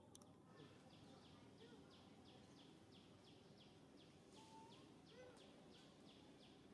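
Faint forest ambience: a short high chirp repeated evenly about three times a second, with a brief whistled call about four and a half seconds in.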